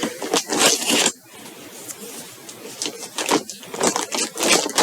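Packaging rustling and scraping as a parcel is handled and opened, in irregular bursts: a busy stretch in the first second, quieter handling, then more rustling from about three seconds in.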